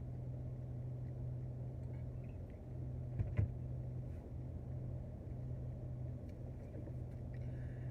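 Steady low hum of a car's engine idling, with a single short click about three seconds in.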